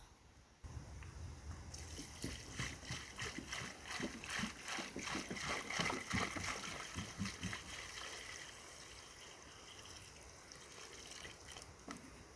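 Elk wading in a muddy wallow: a run of wet splashes and sloshes that starts about half a second in, is busiest in the middle and thins out near the end.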